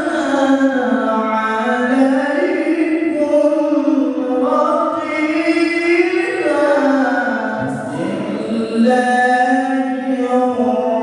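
A solo man's voice chanting long, held melodic phrases with ornamented turns into a microphone, with a short pause for breath about eight seconds in.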